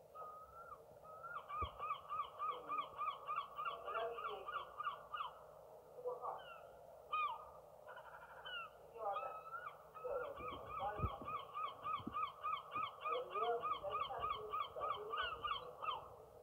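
Seagulls calling: several birds give long runs of rapid repeated notes, about five a second, with scattered single calls between the runs.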